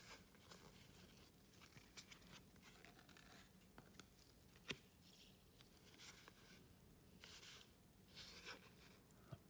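Near silence with faint rustling and soft clicks of trading cards and pack wrappers being handled, and one sharper tick about five seconds in.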